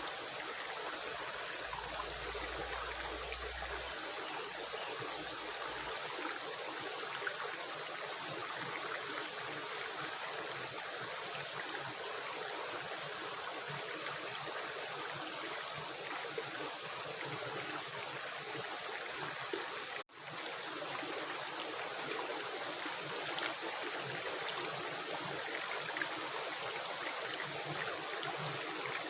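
A river or stream running steadily over rocks, a continuous rushing and gurgling of water. The sound drops out for an instant about twenty seconds in and swells straight back.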